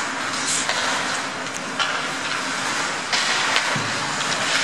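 Ice hockey in play: skates scraping and carving the ice in a steady hiss, with a few sharp clacks of sticks and puck.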